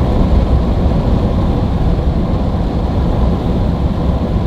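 Steady road and wind noise inside a pickup's cab at highway speed, about 70 mph with the windows up, with a faint steady whistle from the Yakima roof-rack crossbars, which the driver calls super low.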